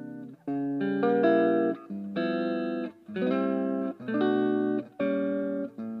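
Tokai ES-60 semi-hollow electric guitar strummed in a progression of chords, about one a second, each chord ringing briefly and then cut short by a short gap before the next.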